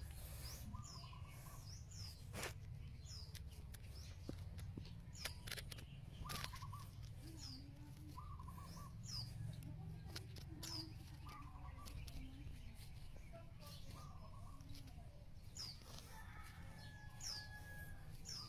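Birds chirping: short, high, falling notes repeated every second or two, with some lower warbling calls, over a steady low rumble and a few sharp clicks.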